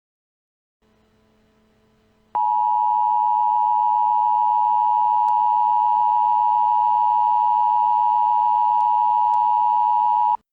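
Emergency alert attention tone: a loud, steady electronic tone near 1 kHz that cuts in suddenly about two seconds in, holds for about eight seconds, then stops abruptly. It signals that an emergency broadcast message is about to follow. Faint radio hiss lies under it, and runs alone before the tone starts.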